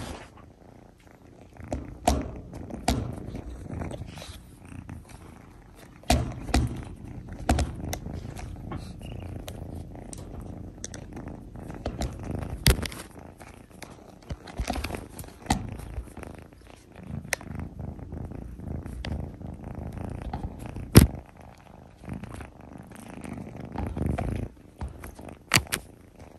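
Red tabby kitten purring close to the microphone, with scattered sharp clicks and knocks as it paws and bites at the camera and the cage wire; the loudest knock comes about two-thirds of the way through.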